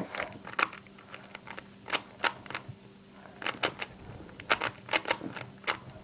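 3x3x3 Rubik's cube being turned quickly during a solve: sharp plastic clicks and clacks of the layers snapping round, irregular and often in quick runs of two or three.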